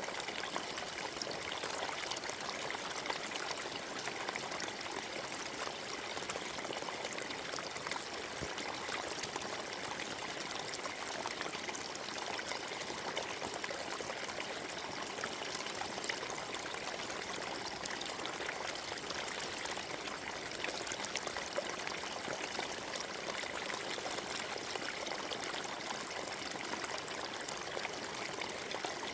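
Forest stream running over stones: a steady, even rush of water with fine trickling and splashing detail.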